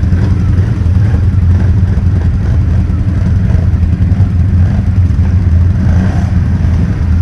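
An ATV engine running steadily at low revs, loud and close, with no clear rise or fall in pitch.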